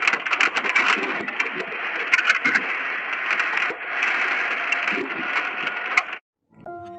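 Strong storm wind blowing: a steady rushing hiss with many sharp clicks and rattles, cutting off about six seconds in.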